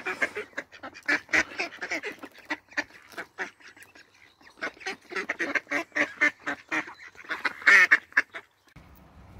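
A flock of ducks quacking over one another as they crowd in to be hand-fed: a dense run of short quacks, loudest near the end. The calls cut off abruptly shortly before the end.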